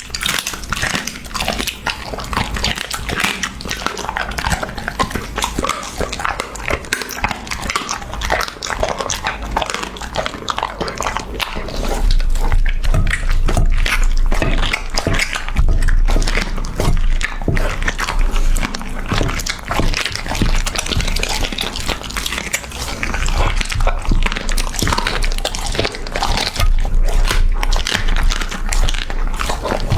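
A puppy chewing and biting raw meat close to the microphone: a dense run of wet clicks and crunches. It gets louder about twelve seconds in, with low thuds under the chewing.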